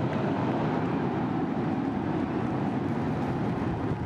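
Starship's Super Heavy booster lifting off on its 33 Raptor engines: a steady, dense rocket-engine rumble, heaviest in the low end.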